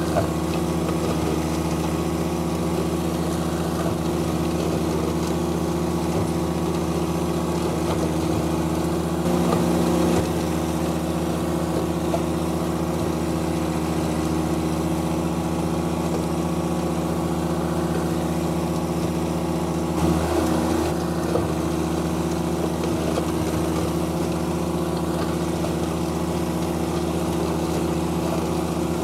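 John Deere 1025R compact tractor's three-cylinder diesel running at a steady speed while it drives a PTO flail mower. The note swells briefly twice, about ten and twenty seconds in.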